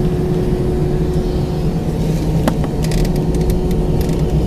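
Airbus A319 cabin noise from a window seat near the wing while the aircraft moves on the runway: a steady jet engine hum over a low rumble, with a few short clicks and rattles from about halfway through.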